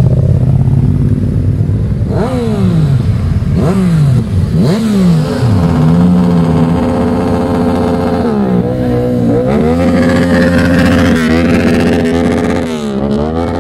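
Motorcycle engines passing close by. Riders blip their throttles in three sharp revs a couple of seconds in, then the engines run at a steady rev with a few brief dips.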